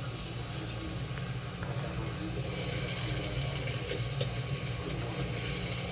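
Popcorn machine running: a steady electric hum, joined about two and a half seconds in by a sizzling hiss that grows louder.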